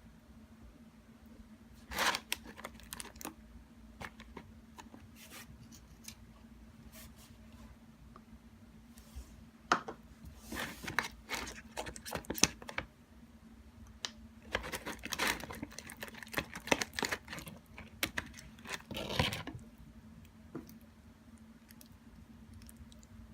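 Hands working slime and its materials: bursts of crinkling, clicking and sticky tearing noises in several clusters, over a faint steady hum.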